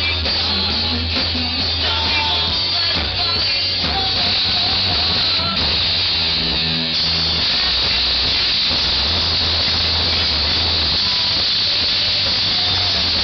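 Loud live rock band playing guitars, bass and drums over an outdoor stage PA, picked up by a camcorder microphone that blurs it into a dense, hissy wash with a steady low bass.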